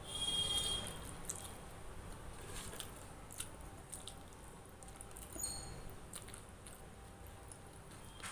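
Close-up eating sounds of rice and chana masala eaten by hand: chewing, soft mouth clicks and fingers mixing rice on a plastic plate. A loud high-pitched squeak sounds at the start, and a second, brief one about five seconds in.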